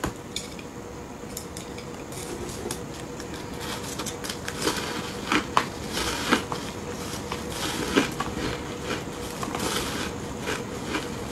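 Chopsticks clicking against a plastic bowl and ice blocks coated in matcha and milk powder. From about five seconds in come crisp crunches and several sharp cracks as the frozen ice is bitten and chewed.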